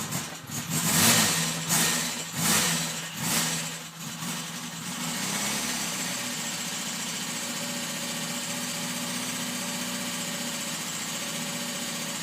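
Freshly started Opel Kadett B tuned 1.2 S OHV four-cylinder engine, blipped about four times in the first few seconds, then settling into a steady idle. The engine has a ticking that the owner takes to be the valves, though the clearances are set at 0.2 mm; tuned engines are said to have a loud valvetrain.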